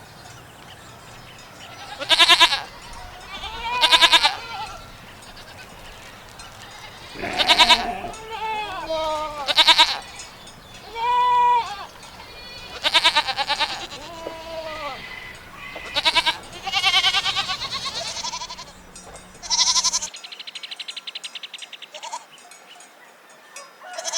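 Goats bleating, about ten separate calls at varying pitches. The bleats stop about 20 seconds in and a quieter buzzing sound follows.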